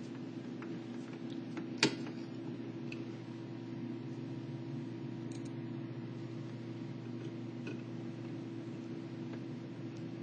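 Steady low hum with one sharp click about two seconds in and a few faint ticks, from screws and a Phillips screwdriver being handled while the screws are driven into the PC housing.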